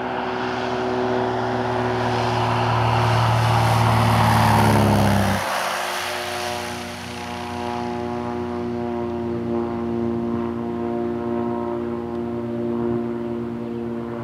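Light propeller airplane landing: its engine grows louder as it comes in low. About five seconds in it passes close by, the engine note drops in pitch and the sound falls away. It then runs on at a steady lower note as the plane rolls out on the grass strip.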